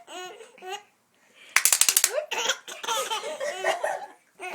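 Laughing in short pitched bursts. There is a brief silent gap about a second in, then a loud outburst of laughter that goes on in fits.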